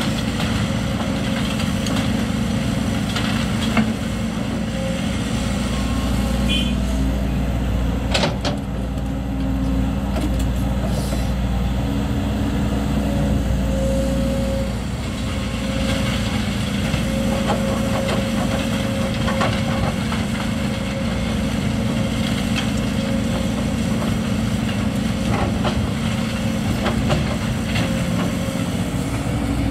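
Hidromek 220LC hydraulic excavator's diesel engine running steadily under working load while it digs and loads rock. Scattered knocks and clatters of stone against the bucket and truck, the clearest about eight seconds in.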